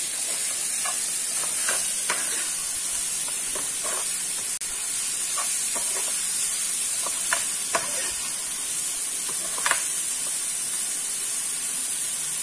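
Chopped vegetable momo filling sizzling in a non-stick frying pan while a metal slotted spoon stirs it, scraping and clicking against the pan about a dozen times over a steady hiss.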